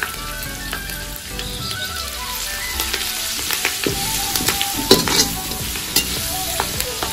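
A tadka of curry leaves, crushed garlic, mustard seeds and cumin sizzling in hot ghee in a black iron kadhai, while a long slotted metal spatula stirs and scrapes against the pan. There are sharper clacks of the spatula on the iron about five seconds in.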